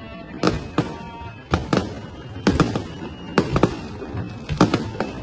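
Aerial fireworks shells bursting in quick succession: sharp bangs in clusters of two or three, about one cluster a second.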